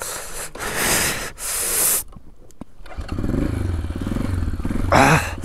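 Wind gusting on the microphone, then about three seconds in an engine starts and settles into a steady low idle.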